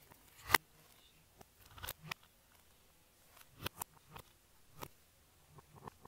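Silicone bubbles of a flower-shaped push-pop fidget toy being pressed, giving about eight short, irregular pops, the loudest about half a second in.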